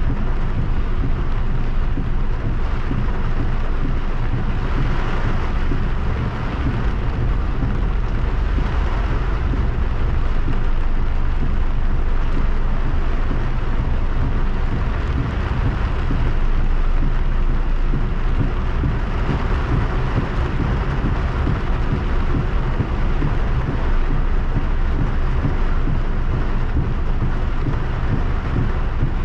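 Heavy rain drumming on a car's roof and windshield, heard from inside the moving car, over a steady low rumble of the car on the wet road.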